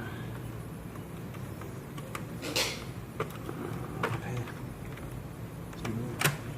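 Scattered clicks and taps of laptop parts being handled during disassembly, with a short scrape about two and a half seconds in and a sharper click near the end, over a steady low hum.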